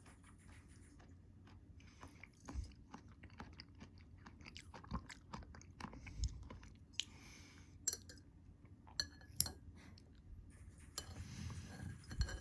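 A person chewing crunchy food close to the microphone, with irregular sharp crunches and crackles.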